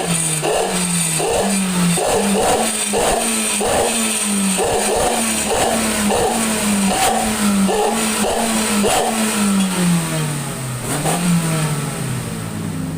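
Daihatsu Gran Max engine revved again and again through its exhaust, the pitch rising and falling with each blip of the throttle.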